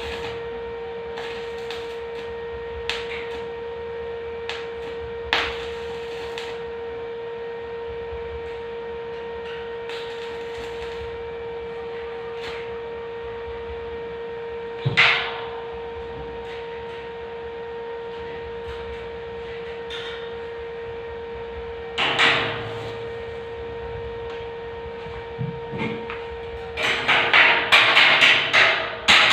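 Hammer strikes on steel: a few scattered knocks, then a quick run of loud, sharp blows near the end, over a steady hum.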